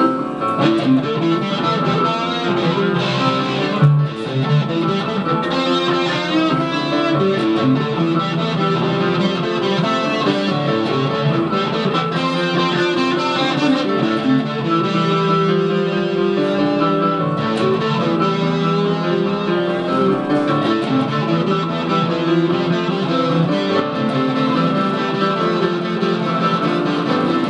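Electric guitar and keyboard playing an instrumental passage together, steady and loud, with no singing.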